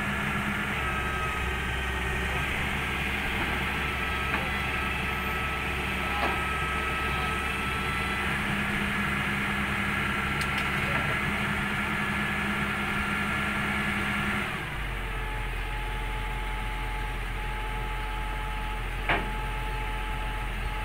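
Hyundai wheeled excavator's diesel engine running under load, with a steady whine over it as the hydraulics work the boom to lift the machine onto a flatbed truck. About fifteen seconds in the note changes and drops slightly, and a single sharp knock comes near the end.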